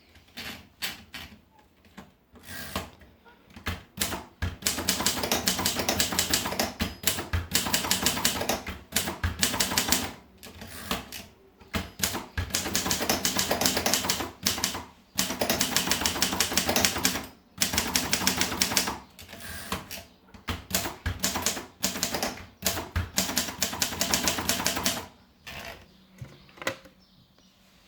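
Hermes Media typewriter being typed on: runs of rapid keystrokes a few seconds long, broken by short pauses, with slower, scattered strokes at the start and dying away about 26 seconds in.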